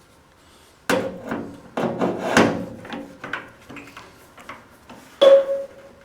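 Slide hammer jerked on a stud welded into a dented car body panel, pulling the dent out: a series of sharp metallic knocks with a brief ring from the panel, the loudest strike near the end.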